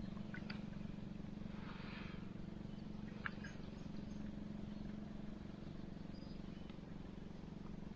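Faint, steady low hum with a few faint ticks and chirps over it and a brief soft hiss about two seconds in.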